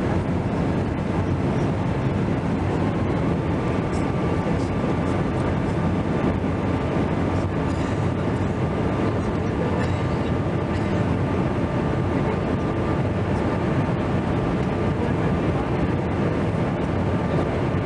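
Steady jet engine and airflow noise inside the cabin of a Boeing 767-300ER climbing after take-off, heard from a window seat over the wing. A faint steady whine joins about three seconds in.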